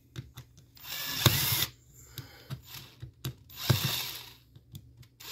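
Cordless drill backing out the screws that hold a recliner's plastic pull handle, running in two short bursts of under a second each, with light clicks between them.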